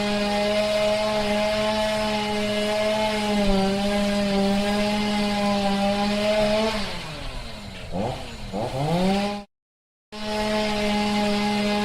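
Two-stroke chainsaw running at steady high revs. About seven seconds in the engine drops toward idle and is blipped twice; the sound then cuts off abruptly and resumes at full revs under a second later.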